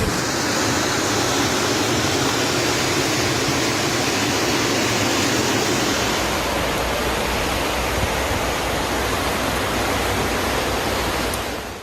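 Loud, steady rushing of water, as from a flood torrent, dropping away suddenly just before the end.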